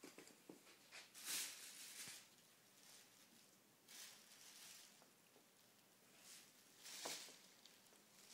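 Thin plastic carrier bag crinkling in a few short bursts as a cat paws and tugs at it, with some soft knocks.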